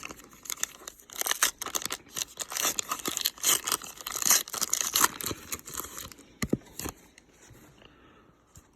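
A foil card-pack wrapper being torn open and crinkled: a dense run of crackling rustle for about six seconds, then two sharp clicks, after which the handling turns faint.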